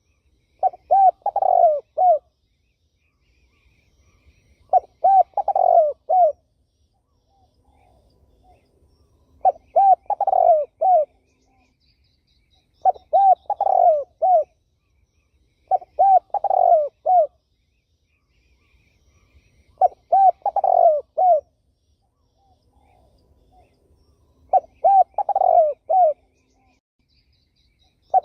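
Spotted dove cooing: seven short phrases of several coos each, repeated every few seconds. Faint high chirps from other small birds come between the phrases.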